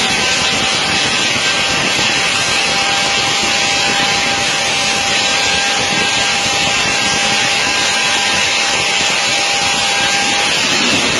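Steady loud mechanical hiss with a thin, steady whine over it, from the machinery driving a large jet's multi-wheel main landing gear as the bogies are lowered in a gear-swing test with the aircraft on jacks. The whine breaks off briefly near the end.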